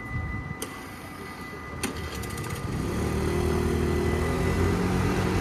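A motor scooter's small engine grows louder as it moves off, becoming the loudest sound from about halfway through. Before that a steady high tone sounds and then stops, with two sharp clicks and a quick run of ticks.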